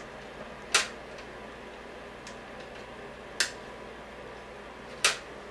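Three sharp clicks, with a couple of fainter ticks between them, from hard parts being handled and seated while a DVD drive is fitted into a small computer case.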